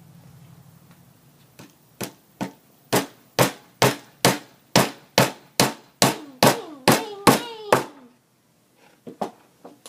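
A hammer driving a nail into a wooden birdhouse: about fourteen sharp strikes, about two a second, then a couple of lighter taps near the end.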